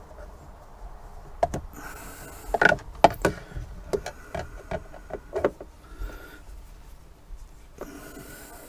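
Screwdriver clicking and scraping against the boat's ignition switch nut and plastic dash panel: a quick run of sharp clicks and knocks in the first half, with short bursts of scraping.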